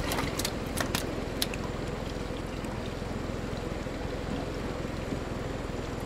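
A boat's motor running steadily, with water sloshing around the hull. A few light clicks in the first second and a half.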